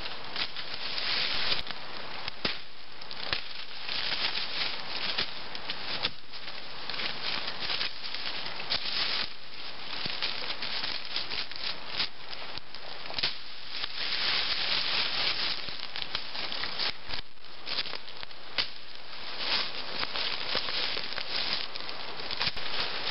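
Undergrowth being cleared with a Woodsman's Pal hooked brush blade: a continuous rustle and crackle of leaves and stems, broken by irregular sharp snaps as stems are hooked and cut off at the base.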